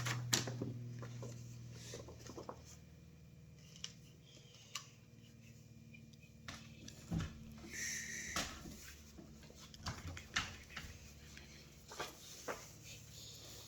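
Scissors cutting and paper being handled at a craft table: scattered light clicks, snips and rustles, with a brief high squeak about eight seconds in.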